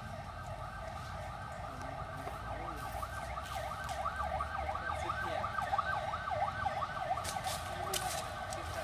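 Insects, likely cicadas, singing in a steady chorus in the trees. About three seconds in, one pulsing call of quick rising-and-falling sweeps joins in, swells, then eases off near the end. A few light rustling clicks come near the end.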